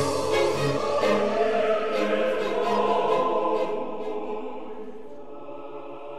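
Closing soundtrack music: a choir singing long held chords, fading out over the second half.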